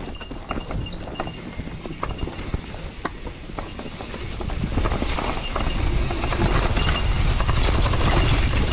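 Mountain bike rolling down a leaf-covered dirt trail: scattered clicks and rattles of the bike over the rough ground, growing louder about halfway through into a dense chatter with a low rumble of wind on the helmet microphone as speed picks up.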